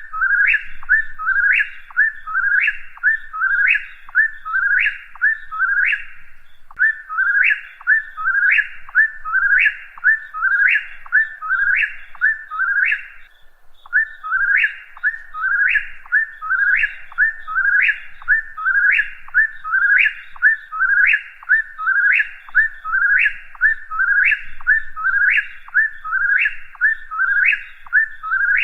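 Whip-poor-will singing its whistled 'whip-poor-will' song over and over, about one phrase a second, with one short break about halfway through.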